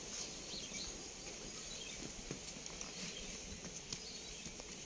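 Quiet outdoor ambience: a faint even hiss with a few soft scattered clicks.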